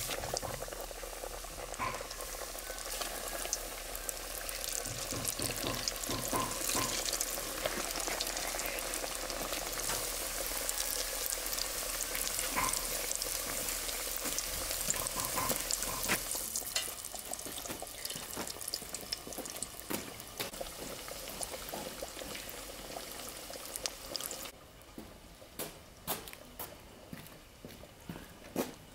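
Samosas deep-frying in hot oil in a steel pot: a steady sizzle thick with small crackles and pops, growing quieter in the last few seconds.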